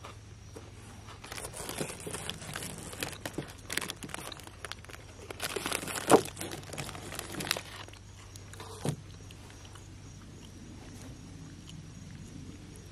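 Chewing a crisp KitKat wafer bar: close crunching and crackling in irregular clicks for most of the first eight seconds, with one louder crack about six seconds in and a last click near nine seconds. A faint steady hum sits underneath.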